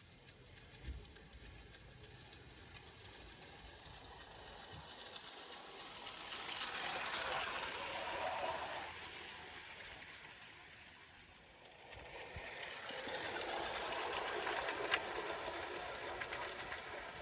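Gauge 0 model locomotive's electric motor and gearbox whirring, with the wheels of the parcels train running on the rails. It grows louder as it draws close, fades away, then comes near and louder again.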